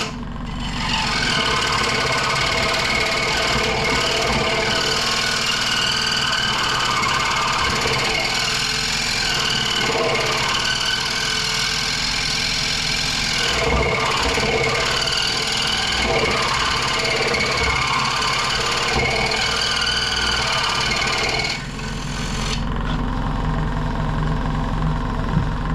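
Central Machinery 16-inch variable-speed scroll saw running, its reciprocating blade cutting through a hardwood practice board with a steady rattling buzz; the owner found the saw barely had power to drive the blade through the wood. About 22 seconds in the cutting noise stops and the saw runs on alone, with a lower hum.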